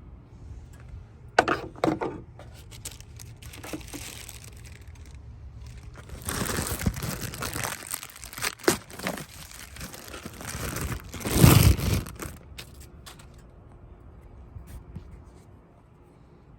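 Packaging crinkling and tearing in irregular bursts as a new part is unwrapped, the loudest burst near the end.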